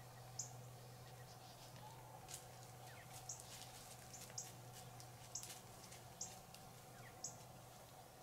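Quiet dusk ambience in brushland: short, faint, high-pitched chirps about once a second over a steady low hum.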